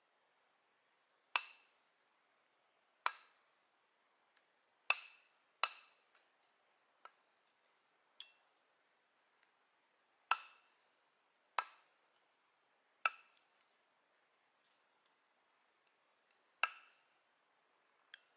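Sharp knocks on wood: eight loud strikes and several fainter ones, irregularly spaced one to two seconds apart, each with a brief ringing tail, like a blade chopping.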